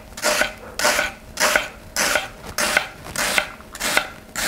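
A small kitchen knife slicing straight down through a halved red onion onto a wooden cutting board in a steady rhythm, about seven cuts. Each cut is a crisp swish through the onion layers ending in a tap of the blade on the board.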